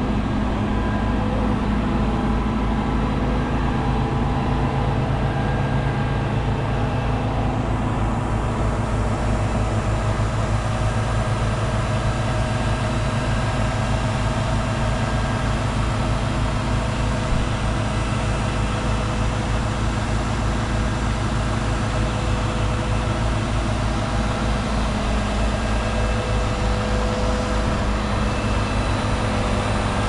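Diesel engine of a Zoomlion 70-metre truck-mounted concrete pump running steadily, powering the hydraulics that unfold the boom.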